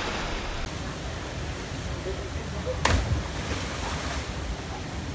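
Steady rush of river water tumbling over rocks into a pool, with one sharp knock about three seconds in.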